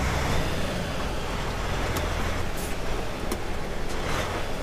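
Diesel engine of a lorry running at low speed, pulling away slowly, heard from inside the cab as a steady low rumble, with a few faint clicks.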